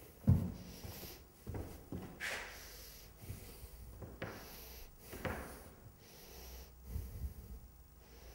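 Sandalled footsteps and scuffing on paper laid over a hard floor, with a thump about a quarter second in as the loudest sound, and scattered knocks and short rubbing swishes after it.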